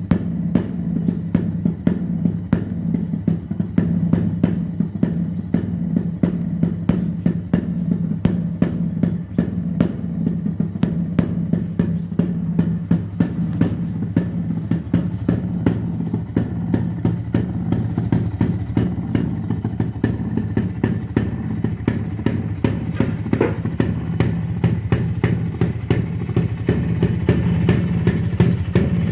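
Kawasaki Brutus 140 two-stroke motorcycle engine idling steadily with a rapid, even crackle of firing pulses.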